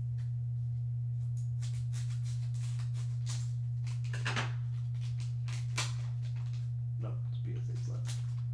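A steady low hum runs underneath the crinkling and rustling of a foil trading-card pack being snipped open with scissors and handled. There are a couple of sharper clicks, about four and six seconds in.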